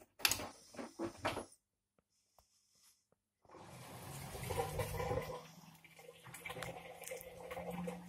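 LG FV309N front-loading washing machine in its wash cycle: water and clothes sloshing in the tumbling drum. It goes quiet for about two seconds, then the drum turns again with sloshing and a steady low motor hum.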